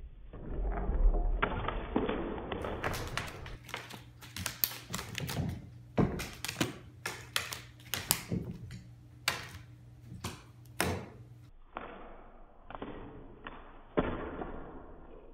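Irregular thumps and taps of a Bengal cat's paws landing and scrabbling on a hardwood floor as it pounces at a feather wand toy, with a dense run of sharp taps in the middle.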